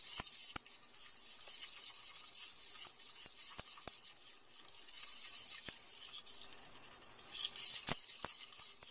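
Wire whisk stirring flour into hot oil in a stainless steel saucepan: a fast, scratchy scraping against the pan bottom, with now and then a light click of the whisk on the pan. It gets louder for a moment near the end.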